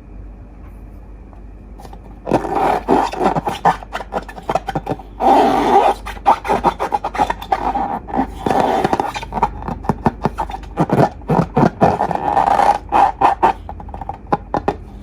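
Slime being worked by hand against balloons: a dense run of crackling clicks and scraping that starts about two seconds in and stops near the end, with two longer unbroken scraping stretches.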